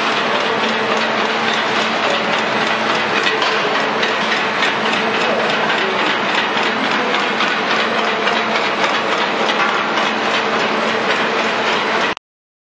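Pet chew cutting machine running, its conveyor feeding an extruded chew strand to the blade, which chops with a rapid, steady clatter over a steady motor hum. The sound cuts off suddenly near the end.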